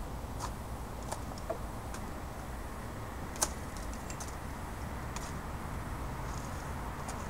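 Hand hedge shears snipping twigs on a shrub: scattered sharp clicks about a second apart, one louder snip about three and a half seconds in, over a steady low rumble.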